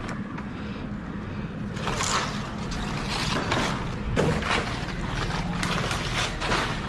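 Two-stroke chainsaw engine running steadily at low speed, with repeated short rushes of noise over it about once a second.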